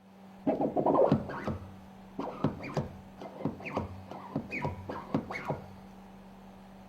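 Irregular run of about a dozen sharp metallic clicks and scrapes over some five seconds, loudest at the start, from hand tools working on the lubricator's parts, over a steady low hum.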